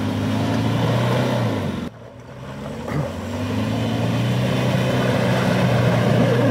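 Land Rover Discovery's diesel engine working hard under load, revving up and down as it climbs a muddy slope. The sound drops away suddenly about two seconds in, then builds back up to a steady hard pull.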